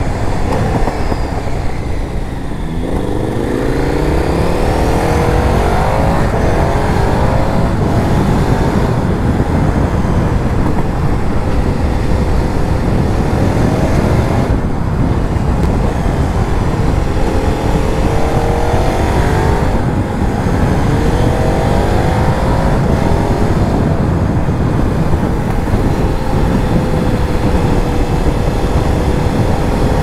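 2006 KTM 990 Super Duke's V-twin engine running under way, dropping briefly about two and a half seconds in and then rising in pitch as it accelerates. There are short lifts off the throttle around 14 and 20 seconds in and another climb between them, over a steady rush of wind and road noise.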